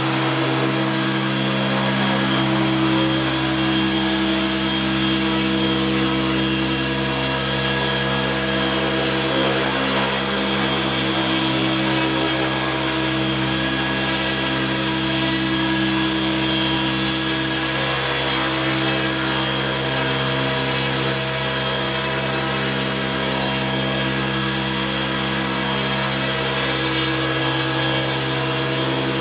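Avant Aurora 90E electric radio-controlled helicopter hovering: a steady whine from its motor and spinning rotors, holding an even pitch.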